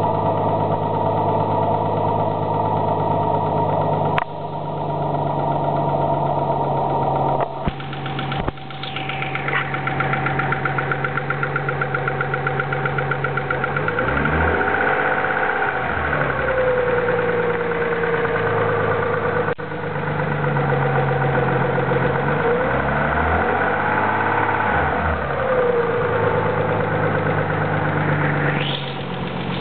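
Nissan 300ZX V6 engine idling with a rapid lifter tick, clearest from about ten seconds in. The engine is revved up and back down twice, and there are a few sharp clicks.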